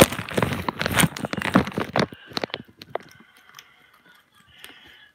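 Handling noise as the recording phone is picked up and repositioned: dense rustling and knocking against the microphone for about two seconds, then a few separate clicks that fade to faint ticks.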